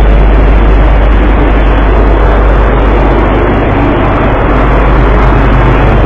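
Boat engine running at a steady pitch, a loud constant low hum under a wash of noise, with no change in speed.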